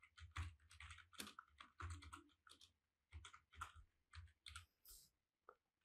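Faint typing on a computer keyboard: quick, irregular runs of keystrokes that stop about five seconds in.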